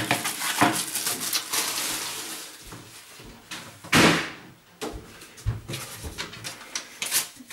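Household objects being handled: scattered clicks and knocks, with one louder rustling burst about four seconds in and a few soft thuds.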